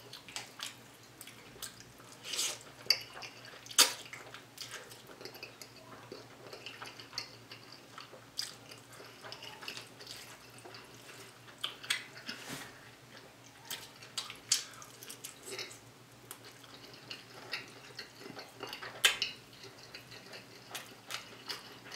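Close-up mouth sounds of someone eating noodles: wet chewing with scattered sharp smacks and clicks, a few of them louder than the rest.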